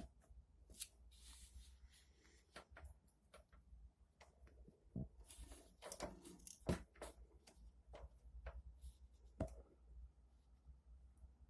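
Faint scattered clicks and knocks over a low rumble, otherwise near silence.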